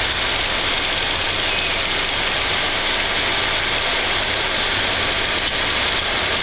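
Flight-deck noise of a Boeing 747-8 at takeoff thrust as it rotates off the runway: a steady, even rush of engine and airflow noise over a low rumble, with no change through the moment.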